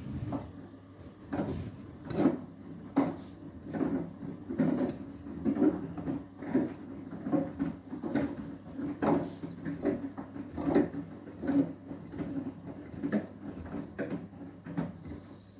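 Beko WTK104121W washing machine tumbling its load in the final rinse of an Eco 40 cycle: wet laundry thuds in the drum a little more than once a second over a steady motor hum. The thuds weaken near the end as the drum slows.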